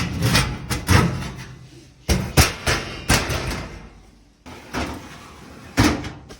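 A series of sharp metal clunks and knocks from a gas oven being put back together after an igniter replacement, as its sheet-metal panels and door are set in place and shut.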